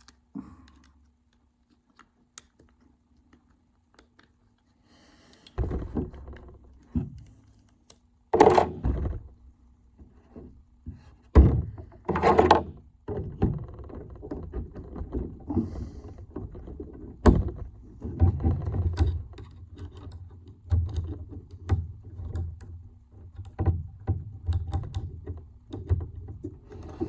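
Irregular handling noise of metal tools working on a Kwikset doorknob lockset while it is pulled apart to get at the lock cylinder: knocks, scrapes and a few sharp clicks. The noise starts about five seconds in after a near-silent stretch, and turns into a busier run of rubbing and knocking in the second half.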